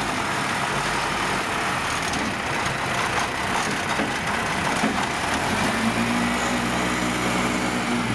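Diesel engine of farm machinery running steadily; its low engine tone becomes clearer about six seconds in.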